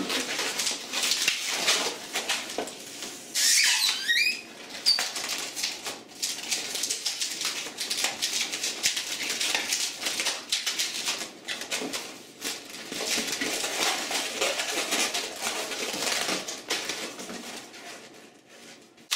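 Latex 260 modelling balloons rubbing and squeaking as hands twist and bend them, with a short wavering squeak about four seconds in. The rubbing dies away near the end.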